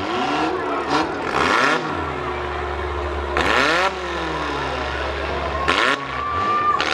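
Demolition derby cars' engines revving up and falling back several times as they push against each other, each rev bringing a short burst of rough noise.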